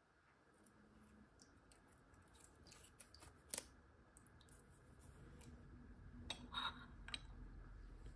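Quiet handling at a ceramic mug and dish: a few faint clicks, then a couple of light clinks past the middle as a small metal spoon and a steeped tea bag are laid on a ceramic lid-saucer.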